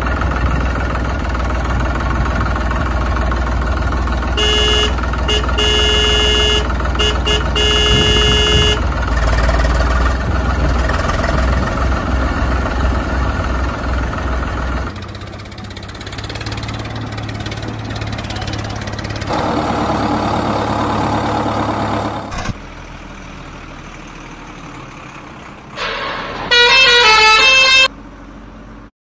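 A vehicle engine running steadily, with a horn honking in several on-off blasts partway through. The engine sound then changes and drops. Near the end a loud horn toots a short tune of stepping tones.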